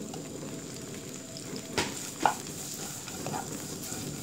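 Julienned carrots sizzling as they stir-fry in oil in a nonstick wok-style pan, stirred with a wooden spatula. There are two short knocks of the spatula against the pan about two seconds in.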